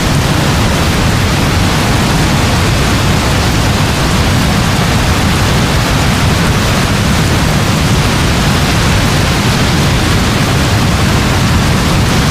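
Heavy rain falling in a steady, dense hiss, with a deep, even layer at the low end underneath.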